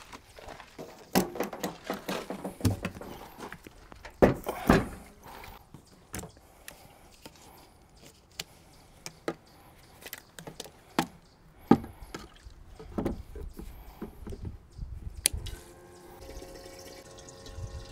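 Fuel being poured into a tank, with scattered clunks and clicks from handling the fuel can. A steady hum comes in near the end.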